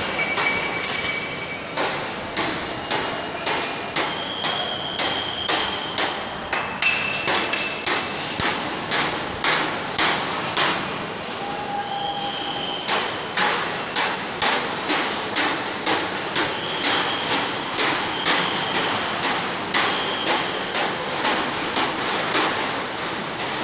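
Stainless steel drinking tumblers set down one after another onto steel tables and plates, each a sharp metallic knock, some with a short high ring, coming fast at roughly two a second.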